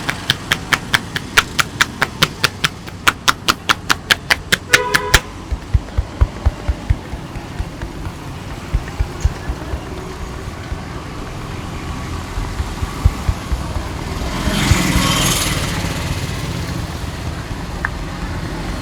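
Rapid, even hand slaps of a barber's tapping massage, about four a second, stop about five seconds in. Duller, softer thumps follow for a few seconds, over steady street traffic noise, with a louder rush of noise about fifteen seconds in.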